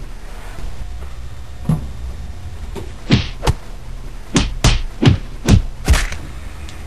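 Two people's hands slapping together in an elaborate handshake: a quick run of about seven sharp slaps over some three seconds, starting about three seconds in, after a single softer knock.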